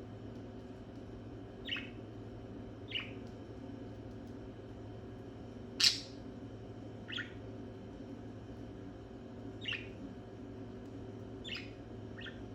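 Budgerigar giving short, sharp chirps, seven in all, spaced a second or more apart, the loudest about halfway through, over a steady low hum.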